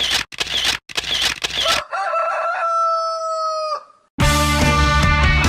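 Four short noisy bursts, then a rooster crowing once: a wavering start and a long held note that drops off at the end. A rock band then comes in loudly about four seconds in.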